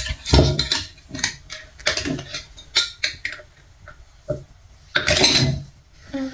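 Small glass jars and metal screw-on lids clinking and knocking together as a baby handles them, fumbling a lid onto a jar, with a longer scraping rattle about five seconds in.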